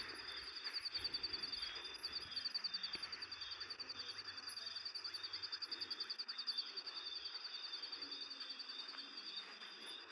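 Night chorus of crickets chirping steadily in a fast, even pulse, with a few higher chirps over it.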